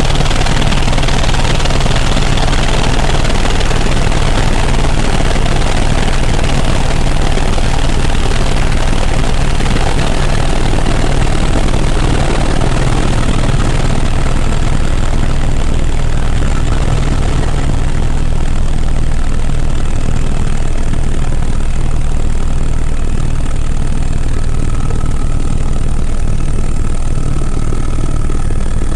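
Helicopter turbine and rotor noise, loud and steady, with a thin high whine standing out more clearly in the second half.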